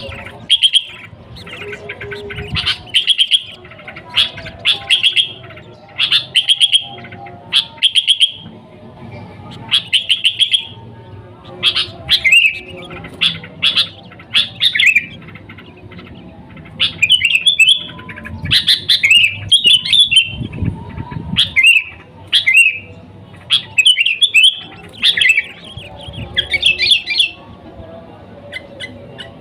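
Sooty-headed bulbul (kutilang) singing: short, rapid chirping phrases repeated about once a second, over a faint low background hum.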